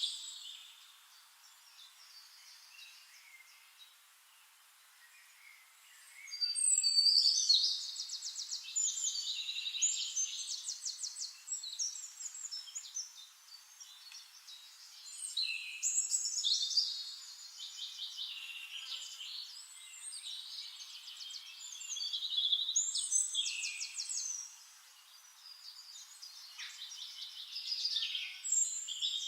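Birdsong: high, rapid trilled and chirping phrases coming in bursts every few seconds, the loudest about seven seconds in.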